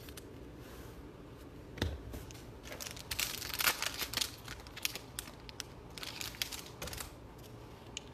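Crinkling and rustling of plastic as trading cards are handled, in two spells a few seconds apart, with a single soft knock on the table about two seconds in.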